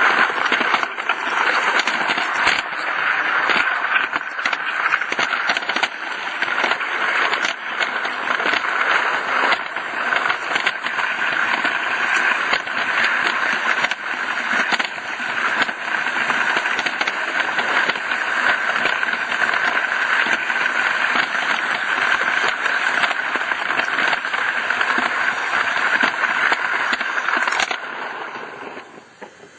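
Roundhouse Millie live-steam garden-railway locomotive running on the track: a steady hissing, crackling rattle full of small clicks, fading away near the end.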